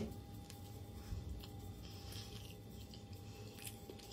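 A person chewing bread and mashed potatoes with meat with the mouth, quietly, with a few faint clicks over a steady faint hum.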